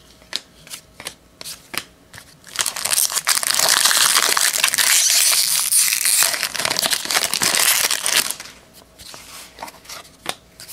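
Foil wrapper of a 2002 Fleer Tradition baseball card pack crinkling loudly for about six seconds as it is torn open. Before and after, light clicks of the trading cards being handled.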